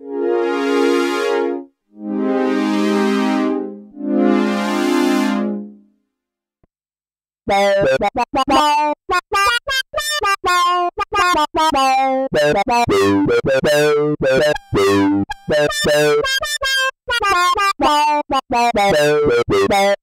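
Dave Smith Mopho x4 four-voice analog synthesizer: a four-oscillator strings pad plays three sustained chords that swell in and fade out. After a short silence, a hard-sync patch plays quick staccato notes, each with a fast sweeping sync glide.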